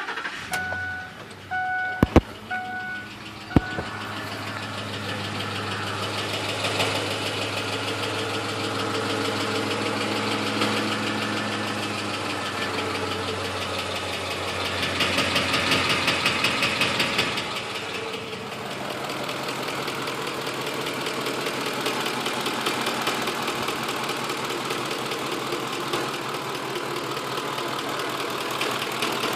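2006 Ford F-150's 5.4-litre V8 running with a fast, steady ticking. The tick showed up on a long road trip, and the owner's suspects are an exhaust manifold leak or a VCT solenoid. A vehicle chime beeps a few times and two sharp clicks sound in the first few seconds.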